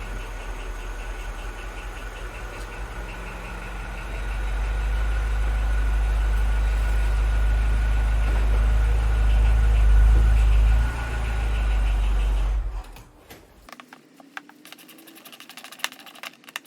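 Mini R56's engine idling with a steady low rumble, a little louder from about four seconds in, then switched off about three-quarters of the way through. A few light clicks follow in the quiet.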